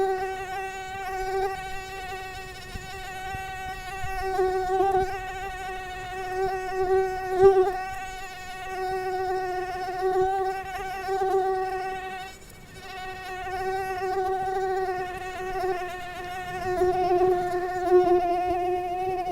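Mosquito in flight: the high whine of its wingbeats holds one steady pitch while it swells and fades in loudness, dipping briefly about twelve seconds in.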